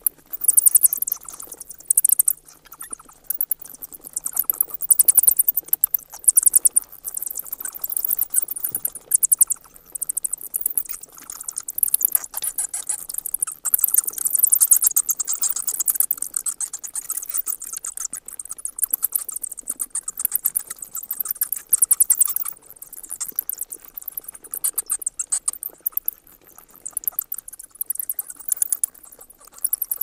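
Bats chittering: dense, rapid, high-pitched squeaks and clicks that come in bursts, rising and falling in loudness.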